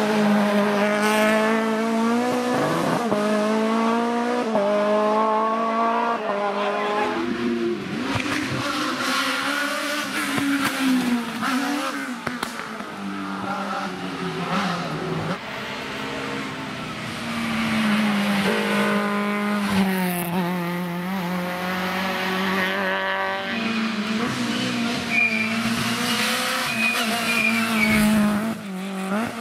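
Rally cars at full throttle on a hillclimb, engines revving high and climbing in pitch, then dropping back at each gear change, again and again as car after car passes. Tyres squeal in the corners.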